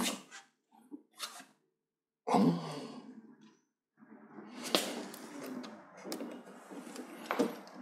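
Clicks, scrapes and rustling of plastic parts being handled and pulled loose while an LCD TV is taken apart, with sharp clicks about two-thirds of a second apart early on and a longer spell of scraping in the second half.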